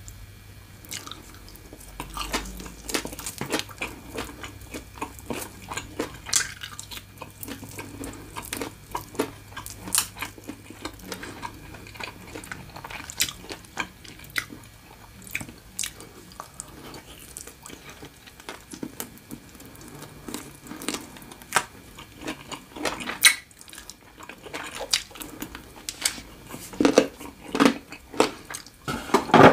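Close-miked mouth sounds of eating fried chicken and green papaya salad: wet chewing and smacking with many small sharp clicks and crunchy bites, the loudest bites coming in a cluster near the end.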